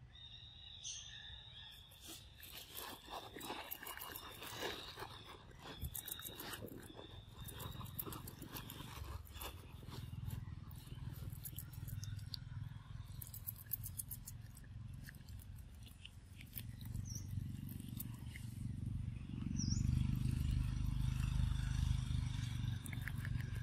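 Outdoor ambience: soft crackling and rustling with a faint steady high buzz, then a low rumble that builds in the second half and is loudest near the end.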